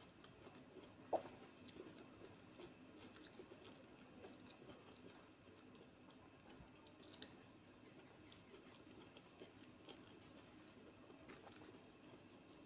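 Faint hand-eating sounds: fingers mixing rice and curry on a plate, with soft squishing and small scattered clicks, and one sharper tap about a second in.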